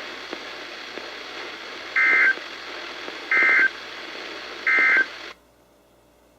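Three short bursts of warbling digital data tones, about a second and a half apart, from a NOAA Weather Radio broadcast over a weather radio's speaker: the Emergency Alert System end-of-message code that closes the warning. A steady radio hiss runs under them and cuts off about five seconds in as the broadcast audio drops.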